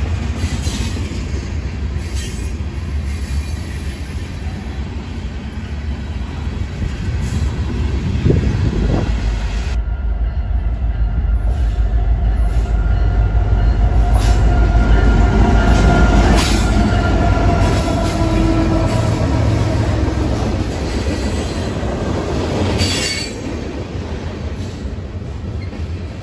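Freight train passing close by: railcars rolling over the rails with a heavy rumble. After about ten seconds a train led by diesel locomotives approaches and passes, its engines rumbling, with a thin squeal of steel wheels on the rails for several seconds.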